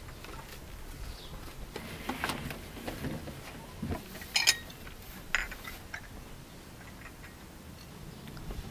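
Glass tea cups clinking on saucers and a serving tray as tea is handed out, with soft handling sounds and two sharp clinks near the middle, the first the loudest.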